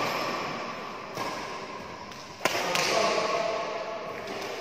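Badminton rackets striking a shuttlecock during a rally: a few sharp smacks about a second apart, the loudest about halfway through, echoing in a large hall.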